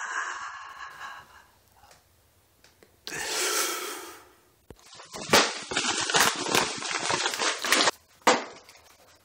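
Shipping packaging being torn open and handled: a tearing rush about three seconds in, then about three seconds of crackling rustles, and one sharp snap near the end.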